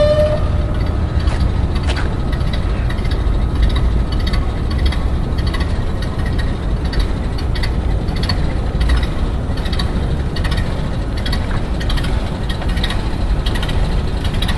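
1929 Ford Model A truck's four-cylinder engine running with a steady low rumble and a regular ticking clatter. A horn note cuts off about half a second in.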